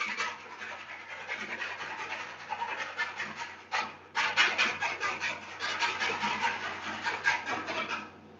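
A spoon stirring and scraping rapidly inside a plastic measuring jug, dissolving salt into the water for a ramen dough solution, with a brief pause about four seconds in. A faint steady machine hum runs underneath.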